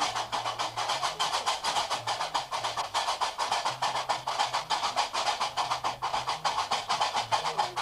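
Gnawa music: qraqeb (iron castanets) clacking in a fast, even rhythm over a low guembri bass line that steps between a few notes.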